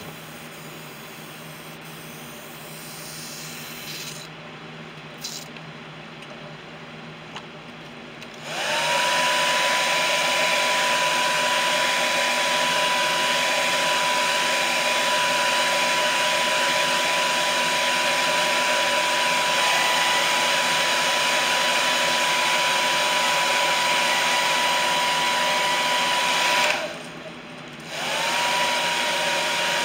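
Handheld blow dryer switched on about eight seconds in, its whine rising briefly as the motor spins up, then blowing steadily to heat-set airbrushed paint on a plastic jerkbait. It cuts off near the end and starts again about a second later.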